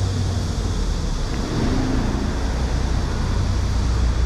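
Steady outdoor street noise, mostly a deep low rumble with no distinct events.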